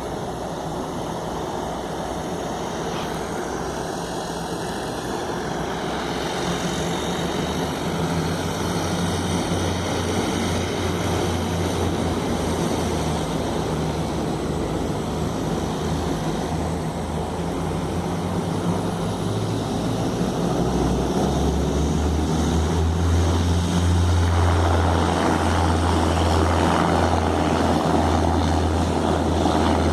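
Embraer EMB-120 Brasília twin turboprop engines and propellers running, growing steadily louder. A strong low propeller hum swells in about twenty seconds in.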